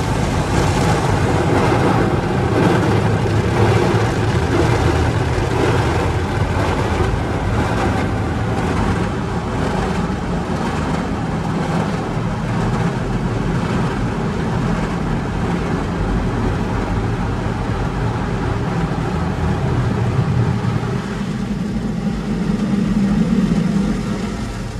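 Automatic tunnel car wash heard from inside the car: water jets and cloth wash strips hit the body and windows, making a loud, steady noise.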